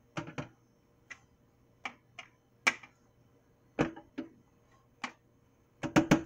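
Irregular clicks and taps of a metal measuring spoon knocking and scraping inside a small spice jar as spice is scooped out, with a quick run of louder taps near the end.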